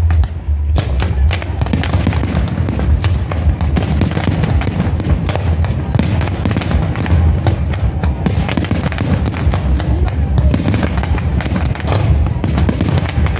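Fireworks display: a rapid, unbroken run of pops, bangs and crackles from many shells and low comets fired together, over a heavy low rumble.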